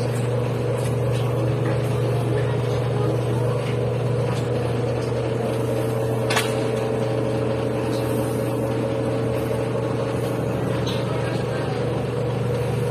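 Steady machine hum, like an electric motor running at constant speed, with one short click about six seconds in.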